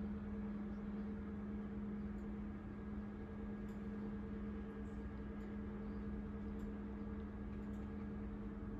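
Steady hum of an air-conditioning and ventilation system through overhead ducts: a constant low drone with a steady tone over it, and a few faint clicks.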